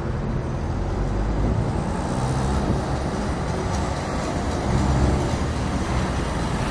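Tractor engine running as the tractor drives up the road towards the listener, growing a little louder near the end.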